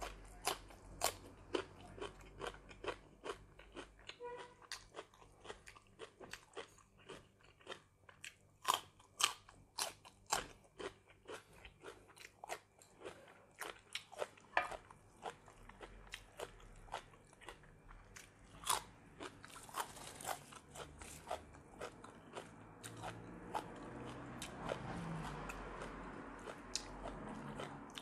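Close-up crunching and chewing of raw green vegetables, with sharp separate crunches about one or two a second.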